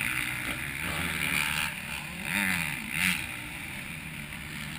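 Motocross motorcycle engines on the track, revving up and down, with short surges just after two seconds and at about three seconds.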